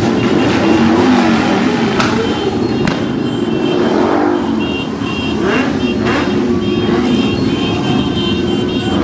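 Several motorcycle engines running together, a loud rough rumble that rises and falls as they rev.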